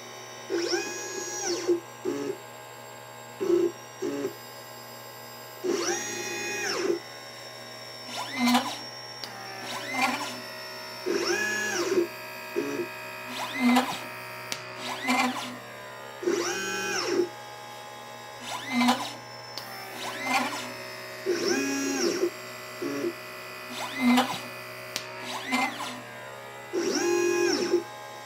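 LitePlacer pick-and-place machine's stepper motors whining as the head moves from part to board. Each move rises and then falls in pitch, and they repeat every few seconds with short buzzes in between over a steady hum.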